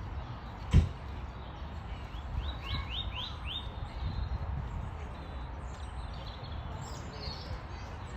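Eurasian nuthatch calling: a quick run of five short rising whistled notes, a few seconds in, over a steady low background rumble. A single sharp knock, the loudest sound, comes just under a second in.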